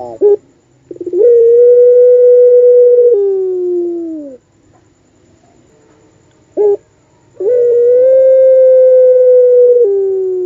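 A puter pelung, a domestic ring-necked dove bred for long calls, cooing twice. Each call opens with a short clipped note, then holds one long, steady, loud coo for about two seconds before sliding down in pitch at the end.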